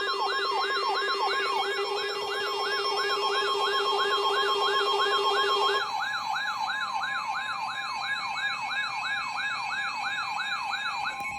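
Siren sounding a fast yelp, its pitch sweeping up and down about three times a second over a steady tone. A lower steady tone drops out about six seconds in.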